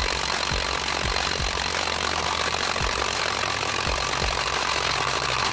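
DeWalt cordless impact wrench hammering steadily on a rusted trailer wheel lug nut, the motor whine running over the rapid impacts.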